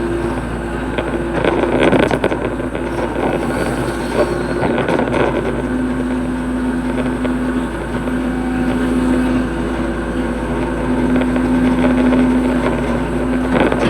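Hitachi hydraulic excavator running while digging a ditch: a steady diesel engine drone with a humming tone that comes and goes in stretches of a few seconds as the machine works.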